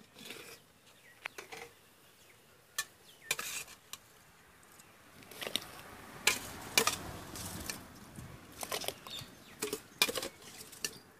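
Aluminium and steel cooking pots and lids clattering as they are handled, a run of sharp knocks and clinks at irregular intervals.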